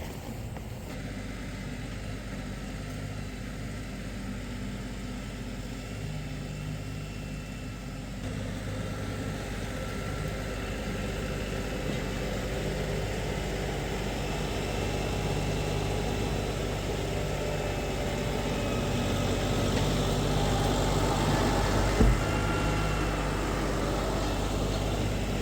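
Farm tractor engine running steadily, gradually getting louder, with one sharp knock near the end.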